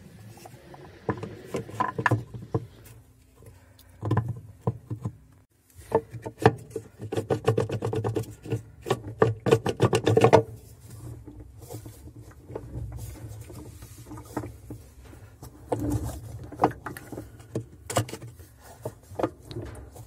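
Plastic washing-machine float and coupler being pushed and turned by hand onto the agitator shaft, giving irregular clicks, knocks and scraping as the parts seat. The handling comes in two stretches, a long busy one through the first half and a shorter one near the end.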